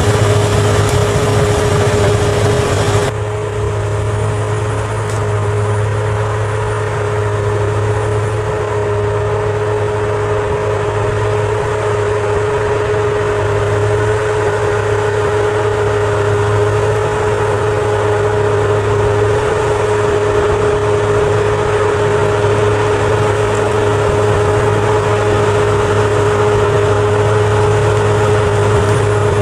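Bulldozer's diesel engine running steadily, a low drone with a steady whine on top. The high hiss drops a little about three seconds in, then the sound holds even.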